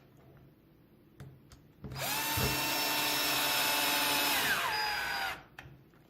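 Power drill-driver running in a burst of about three and a half seconds, driving an M4 flathead screw to mount the bumper. Its whine holds steady, then drops in pitch shortly before it stops. A few light clicks come before it.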